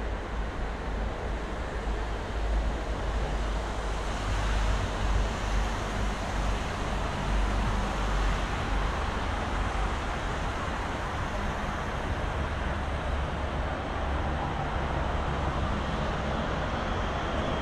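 Steady city road traffic on the riverside road: a continuous rumble and hiss of passing cars. Near the end a tram comes along the road, adding faint high steady tones over the traffic.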